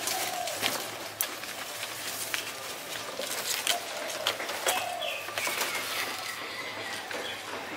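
Leafy branches rustling and crackling with sharp snaps as a thin branch is pulled down by hand, with a few short bird calls in the background.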